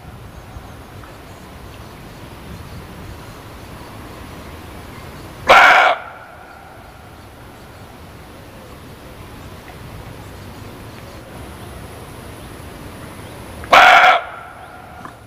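Muntjac (barking deer) giving two short, sharp barks, one about six seconds in and another near the end, over a steady background hiss.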